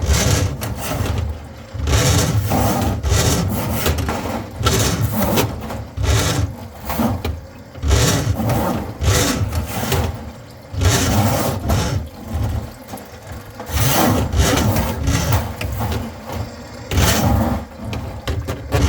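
Irregular bouts of scraping and rubbing, each lasting a second or two, with short pauses between.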